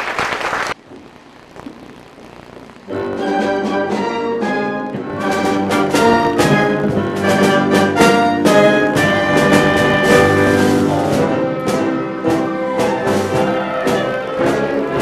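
A brief burst of noise at the very start, then, about three seconds in, a brass-led pit orchestra strikes up an upbeat show number with punchy, clipped chords.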